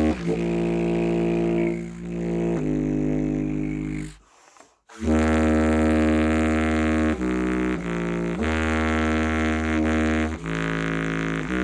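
Trumpet played through a clarinet mouthpiece, giving a low, buzzy reed tone meant to sound like a bass saxophone. It plays long held low notes, stops for a breath about four seconds in, then carries on with a string of notes changing every second or two.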